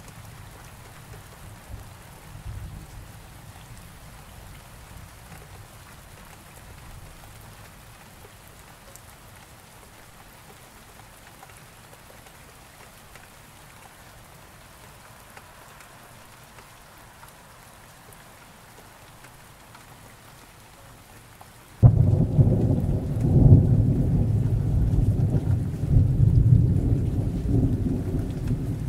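Steady rain falling, with a roll of thunder dying away at first. About three-quarters of the way through, thunder breaks in suddenly and loudly and rumbles on heavily.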